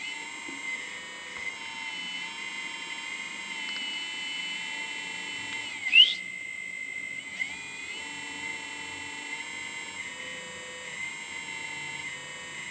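Hydraulic pump of a Kabolite 970 RC excavator whining steadily, the pitch shifting a little as the arm and bucket move. About six seconds in, a short, sharp rising squeal is the loudest sound.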